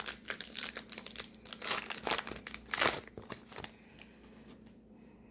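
Trading card pack wrapper torn open and crinkled by hand, a rapid run of crackling rustles that dies down after about three and a half seconds.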